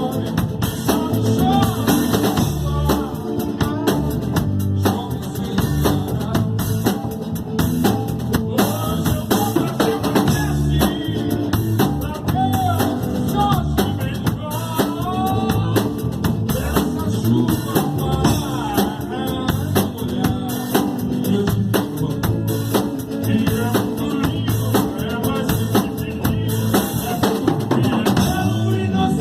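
Live band playing an instrumental passage: drum kit with bass drum, snare and rimshots keeping a steady beat under bass and a lead line of bent, sliding notes, with no singing.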